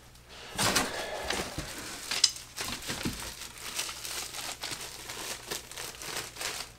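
Packing wrap rustling and crinkling as it is pulled and handled, in uneven handfuls of noise, with a sharper crackle about two seconds in.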